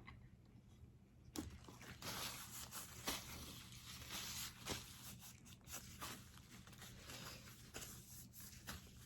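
Crinkling and rustling of takeout food packaging, starting with a sharp crackle about a second and a half in and going on in irregular crackles.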